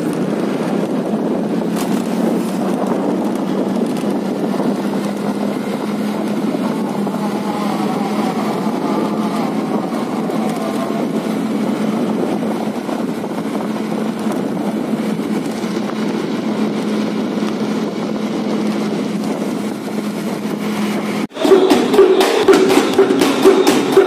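Motor scooter running steadily under way, with wind and road noise. About 21 seconds in it cuts to loud, rapid drumming on a bedug, a large mosque drum, beaten with wooden sticks that clack sharply.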